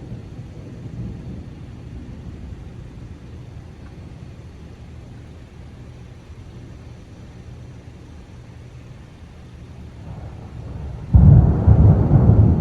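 Thunder: a low rumble that slowly dies away, then a sudden loud clap near the end that keeps rolling.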